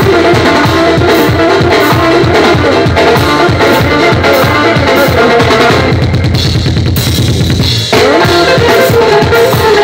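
Loud amplified live band music: a hand-beaten doira frame drum and drum kit keep a steady beat under a melody. About six seconds in the melody drops out for a fast drum roll of about two seconds. The melody then comes back in with a rising slide.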